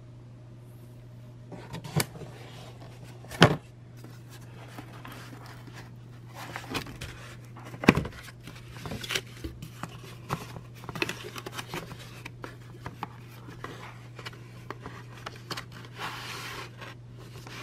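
Plastic supplement bottles and a cardboard shipping box being handled: several sharp knocks as a bottle bumps against and is set into the cardboard dividers, the loudest about three and a half and eight seconds in, with cardboard scraping and rustling between. A steady low hum runs underneath.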